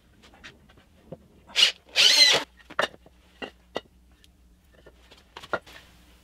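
Light knocks and taps of wooden planks being handled and set down, with a short, loud, harsh rasping burst about two seconds in.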